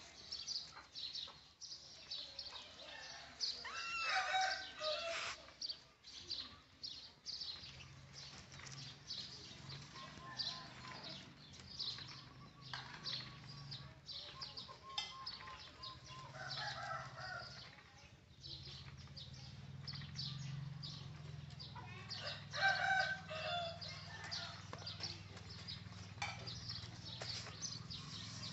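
A rooster crowing three times, over light clicking and rattling from a woven bamboo basket that baby monkeys are moving around in on concrete. A low steady hum comes in about a quarter of the way through.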